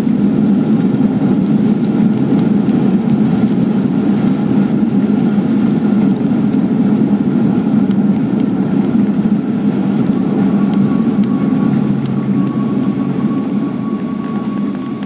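Inside the cabin of a Boeing 737-800 on its landing rollout: a loud, steady rush of its CFM56 engines, airflow and wheel rumble as it decelerates on the runway. The noise eases off over the last few seconds as the aircraft slows.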